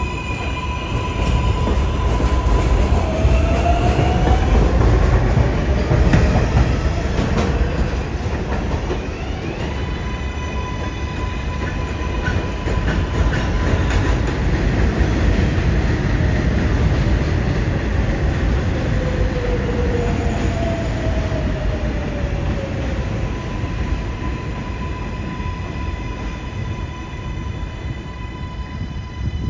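R188 subway cars of the 7 train running through an elevated station: heavy rumble of wheels on rail under a steady electric motor whine. The whine rises in pitch a few seconds in as a train pulls out, and falls around two-thirds of the way through as the next train brakes to a stop.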